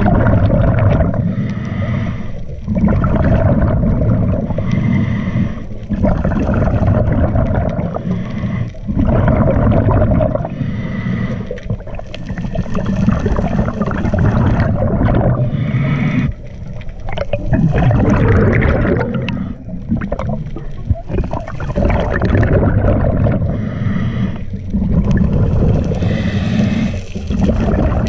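Scuba diver breathing through a regulator, heard underwater: bubbling gurgles from the exhaled air, broken by short pauses every few seconds between breaths.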